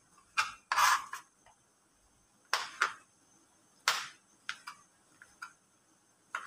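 Kitchen knife chopping chicken balls into small pieces, the blade knocking on the cutting board in about ten sharp, unevenly spaced strokes.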